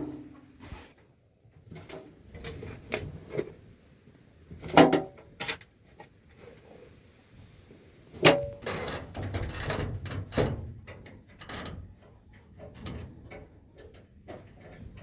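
Scattered knocks and clatters, as of objects being handled and set down, loudest about five and eight seconds in.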